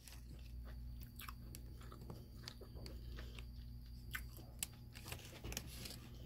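A person chewing a mouthful of breakfast hamburger close to the microphone, with many small wet mouth clicks and smacks.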